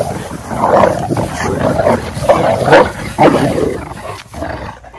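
Cane Corso dogs growling in rough play-fighting, a run of loud, irregular rasping growls.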